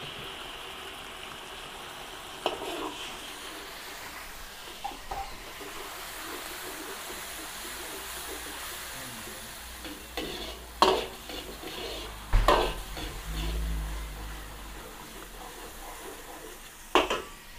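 Sautéed garlic, onion and chorizo with tomato sauce sizzling steadily in a pan while being stirred, with a few sharp knocks of the utensil against the pan.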